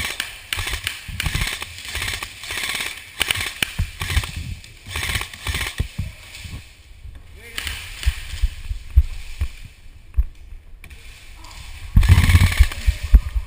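Airsoft guns firing in scattered bursts of rapid snapping shots. A loud low rumble of handling or wind noise on the microphone sets in about twelve seconds in.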